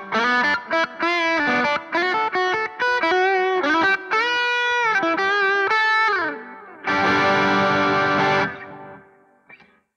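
Sterling Silo3 electric guitar fitted with DiMarzio Chopper and Transition pickups, played through overdrive: a fast single-note lead line with string bends and a falling slide. A held chord follows about seven seconds in, is cut off abruptly about a second and a half later and fades out, with a small click near the end.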